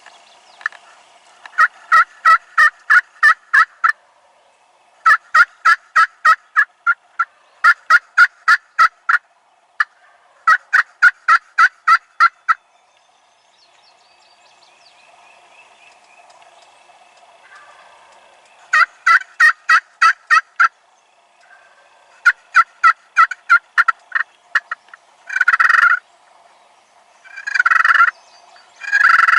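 Wild turkey calling: several runs of sharp, evenly spaced yelps, about four notes a second, then three longer, louder calls close together near the end.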